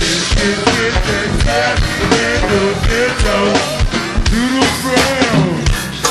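Live go-go band music: drum kit and percussion keep a steady, driving beat with pitched melodic lines over it.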